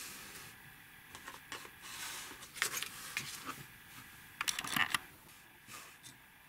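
Handling noises from small plastic model-kit pieces being fitted together by hand: scattered light clicks and rustles, in two busier spells, the louder one about three-quarters of the way through.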